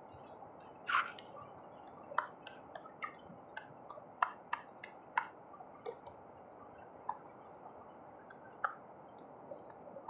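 Scattered sharp clicks and taps, about a dozen at uneven intervals and the loudest about a second in, over a steady low hiss.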